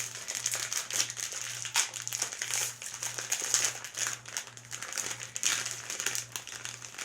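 Wrapper of a snack package of mini chocolate chip cookies being crinkled and handled as it is opened, a dense irregular crackling throughout.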